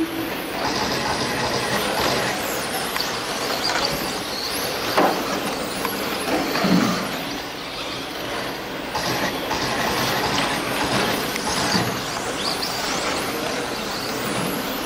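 Several radio-controlled touring cars racing together on an indoor carpet track: a steady, dense whirring of motors and tyres, with brief whines rising and falling as individual cars speed up and slow down.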